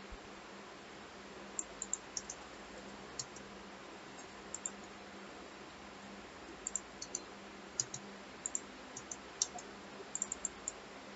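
Faint clicks of a computer mouse and keyboard, single and in quick pairs and runs, over a low steady hum and hiss.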